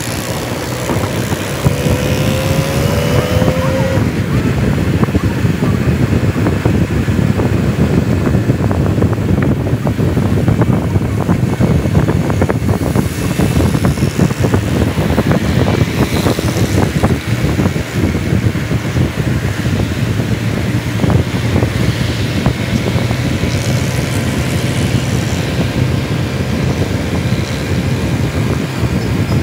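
Wind buffeting the microphone of a camera moving through traffic, over the steady drone of small motorcycle engines. In the first few seconds an engine note rises briefly.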